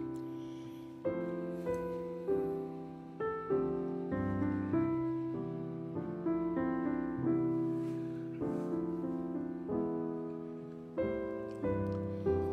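Background music: gentle solo piano, notes struck every half second or so and left to ring.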